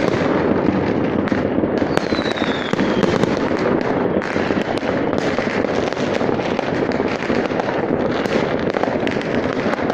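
Many fireworks going off at once: a continuous dense mix of bangs and crackling, with a short falling whistle about two seconds in.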